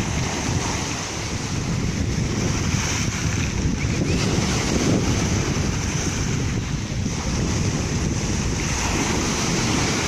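Sea surf breaking on a pebble beach and washing around rocks: a steady wash of noise with no single standout crash.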